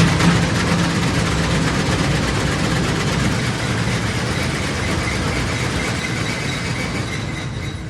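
Combine harvester running with its header drive kicked in, a steady loud mechanical noise that starts abruptly. This is a test run of the header after new sickle sections and guards were fitted.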